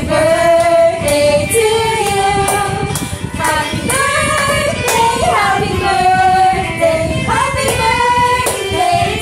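A song with a female lead vocal over a steady beat of about two beats a second.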